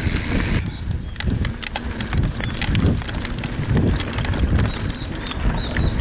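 Mountain bike riding over a bumpy dirt trail: wind rumbling on the microphone and many irregular sharp clicks and rattles from the bike as it bounces over the rough ground.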